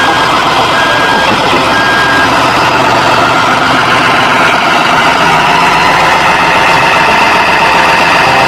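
Caterpillar D8T dozer's diesel engine running loudly and steadily, with a warning alarm beeping about once a second that stops about two seconds in. A steady whine rises out of the engine noise from about halfway through.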